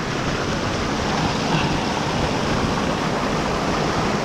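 Steady rush of a mountain waterfall and stream, an even wash of falling water with no break.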